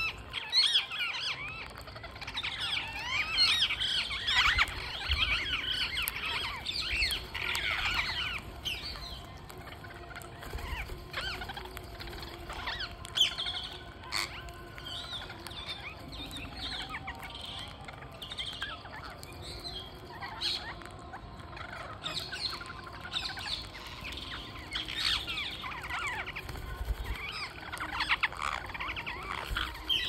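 A flock of rose-ringed (Indian ring-necked) parakeets chattering, with many short chirps and calls overlapping. The chatter is busiest for the first several seconds and again near the end.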